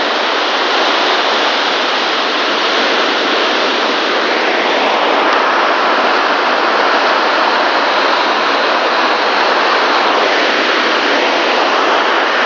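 Heavy rain pouring onto a translucent roof overhead: a loud, steady hiss-like roar that grows a little louder about five seconds in.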